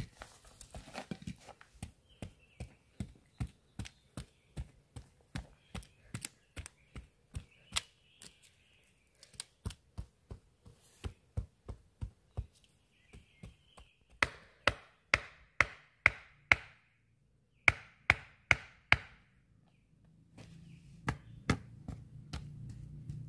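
Tent pegs being hammered into the ground: a long run of light knocks at about two a second, then past the middle two quicker runs of louder, ringing strikes.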